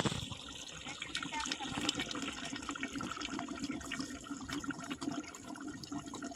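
A steady watery noise with many small pops and crackles.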